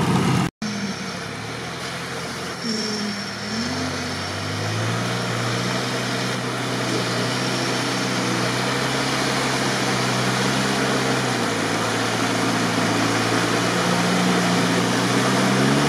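Engine of a UAZ off-roader on big mud tyres running under load as it wades through deep muddy water: a steady drone whose revs climb about four seconds in and then hold, with a split-second dropout near the start.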